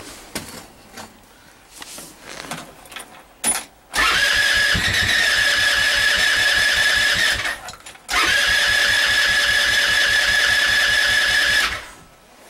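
Go-kart's small engine cranked twice on its electric starter, each try about three and a half seconds of steady high whine over fast, even chugging, without catching: a cold hard start in the snow. A short click comes just before the first try.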